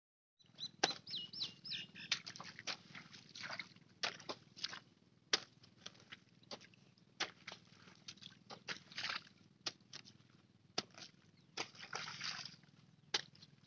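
A hoe chopping and scraping into the wet mud of a paddy-field bund: irregular thuds and wet slaps about every half second to a second, with water sloshing. A bird chirps a few times near the start.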